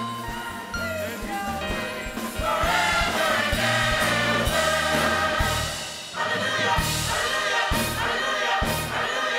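Gospel choir singing with a live band, drums keeping a steady beat under the voices. The music swells louder about two and a half seconds in and dips briefly around six seconds in.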